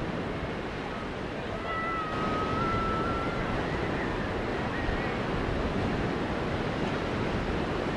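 Ocean surf breaking and washing up a beach in a steady rush. About two seconds in comes a faint, high, drawn-out call.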